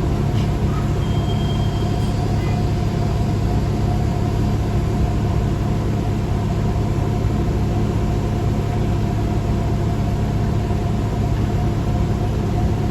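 New Flyer D40LF city bus running, heard from inside the cabin: a steady low drone of the engine and drivetrain with a steady whine above it. A short faint high tone sounds about a second in.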